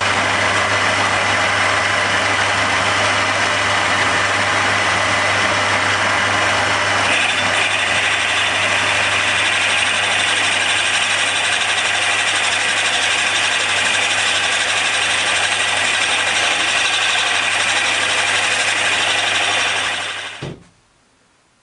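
Machine tool running under a steady cutting noise over a low electric-motor hum, growing brighter and harsher about seven seconds in; it is switched off and stops about twenty seconds in.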